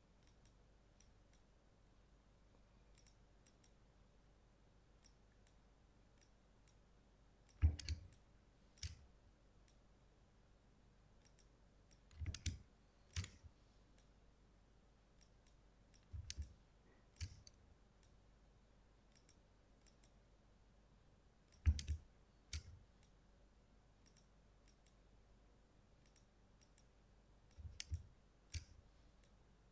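Computer mouse and keyboard clicks while working the clone stamp tool. There are five groups, each a quick cluster of clicks followed by a single click about a second later, with faint ticks in between.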